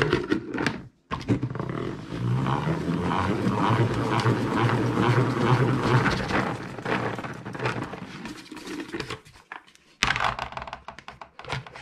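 Hand-operated plastic salad spinner whirring as it spins wet chopped leeks to fling the wash water out. The rumbling hum builds, then winds down over several seconds. About ten seconds in come clicks and knocks as the lid comes off and the basket is lifted.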